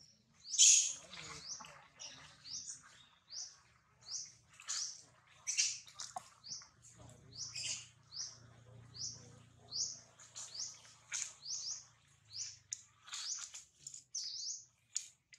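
Repeated short, high-pitched chirps, about one to two a second, from a small animal.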